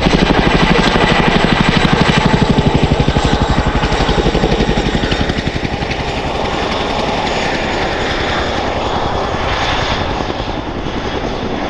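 Boeing CH-47 Chinook tandem-rotor helicopter flying low past, its two rotors making a rapid, even blade chop over a steady high turbine whine. The chop is loudest in the first few seconds and eases a little as the helicopter moves on.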